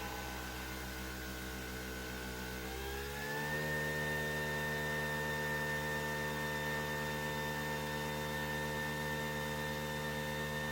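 Nespresso VertuoPlus coffee machine running its brew cycle: a steady motor whir that rises in pitch about three seconds in and then holds steady.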